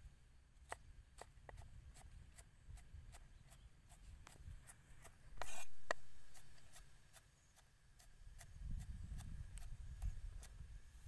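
Cleaver chopping garlic on a round wooden chopping board: a steady run of light knocks, about two or three a second, as the sliced cloves are minced. About halfway through there is one brief, louder rasping noise.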